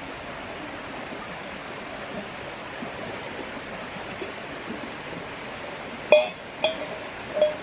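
Creek water flowing steadily. About six seconds in, a stainless steel mug clinks against the metal Lixada wood stove three times as it is set down, each clink ringing briefly.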